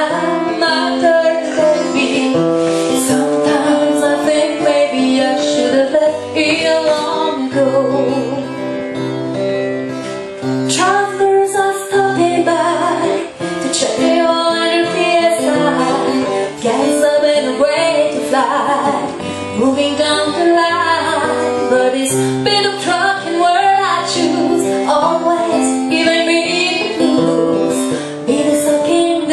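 A woman singing a slow song live with acoustic guitar accompaniment.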